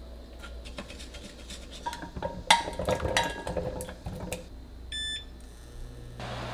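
Metal spoon clinking and scraping against a stainless mesh strainer and mixing bowl over a pan, the loudest clink about two and a half seconds in. About five seconds in comes a short electronic beep from the induction cooktop's touch controls, and near the end a steady hum and fan-like rush starts as the cooktop runs.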